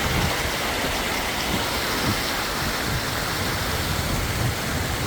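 Mountain stream rushing steadily over rocks in a valley, with uneven low rumbling underneath.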